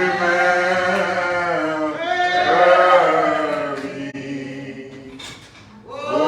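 Slow, drawn-out hymn singing in church, with voices holding long wavering notes over two phrases. The singing fades near the end before the next phrase starts.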